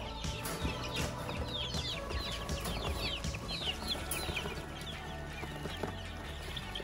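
Baby chicks peeping: a rapid run of many short, high, falling cheeps, densest in the first half and thinning out toward the end.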